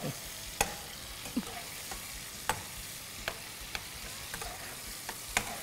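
Diced tomatoes sizzling in oil in a frying pan, with a metal spoon clicking and scraping against the pan now and then as they are stirred.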